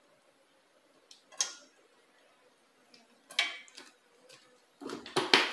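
A metal spoon clinking against a metal saucepan as oil is spooned into the pan: a few light clinks spaced out, then a quick run of louder knocks near the end.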